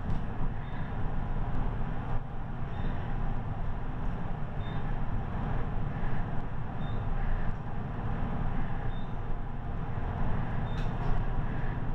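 Passenger elevator car travelling upward, heard from inside the cab as a steady low running rumble. A faint short high beep comes about every two seconds, in step with the floors going by, and there is a single click near the end.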